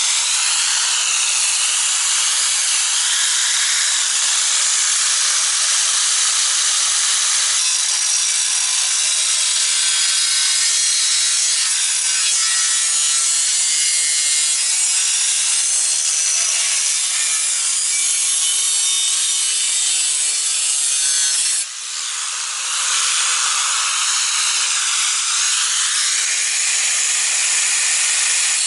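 Angle grinder with a cutting wheel cutting through the steel core support of a car, a loud, steady high-pitched grinding. It breaks off for a moment about 22 seconds in, then picks up again.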